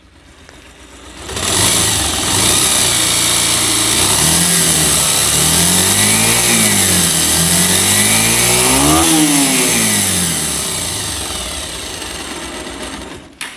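Bajaj Pulsar motorcycle's single-cylinder engine running, revved up and back down twice. It makes a harsh, bad-sounding noise that the mechanic traces to a worn balancer gear.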